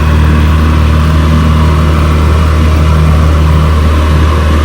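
Small tour boat's engine running steadily with a loud, even low drone.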